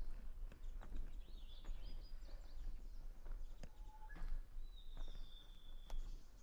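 Japanese bush warbler (uguisu) singing, with a short low note, a higher one, and then a long clear whistle that falls slightly, amid other chirps and warbles. Footsteps sound scattered through it.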